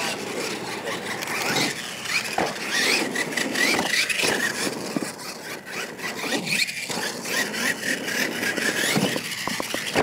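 R/C monster truck's motor whining, rising and falling in pitch as it speeds up and slows down.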